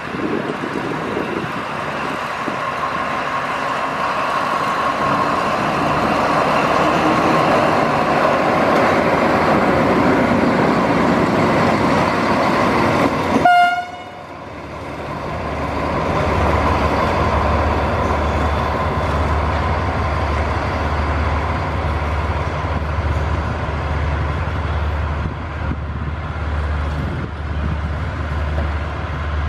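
Alsthom diesel-electric locomotive number 4207 running slowly on yard track, with one short toot of its horn about halfway through. Afterwards its diesel engine is heard closer, a low pulsing engine note over the running noise as it comes on.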